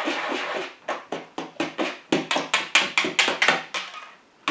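A kitchen utensil tapping and clicking against a bowl as vanilla pudding is stirred into beaten egg whites. The strokes are irregular at first, then quicken to about six a second, and stop about four seconds in.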